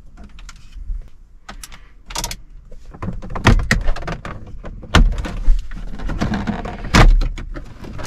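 Plastic radio surround trim being prised off a Smart Fortwo 451 dashboard: plastic scraping and rubbing, with several sharp clicks as its retaining clips let go, the loudest about five and seven seconds in.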